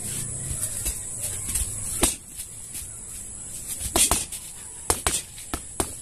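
Boxing-gloved punches landing on a homemade hanging punching bag wrapped in black plastic. There is one hit about two seconds in, then a quick flurry of about six hits in the last two seconds, over a steady high-pitched hiss.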